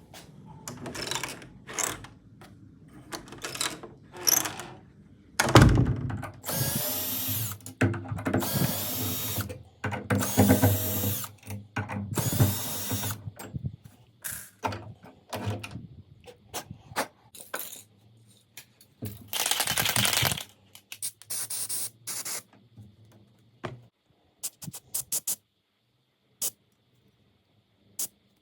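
Door handle being worked on: repeated bursts of a drill-like whir or squeal, the longest in the first half, then scattered sharp clicks of the handle mechanism near the end.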